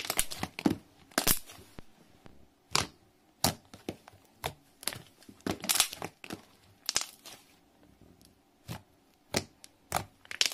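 Thick white matte slime, made from dish soap, cornstarch and clay, being squeezed and kneaded by hand, giving sharp, irregular crackles and pops, a few each second.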